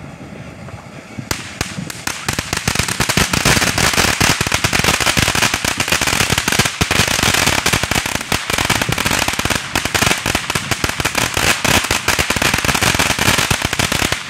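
Ground fountain firework spraying sparks: a low hiss at first, then from about a second in a dense, rapid crackling that keeps on and cuts off suddenly at the end.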